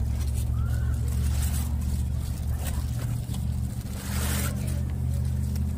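A steady low motor hum, like an engine running at idle, that dips briefly a little before four seconds in.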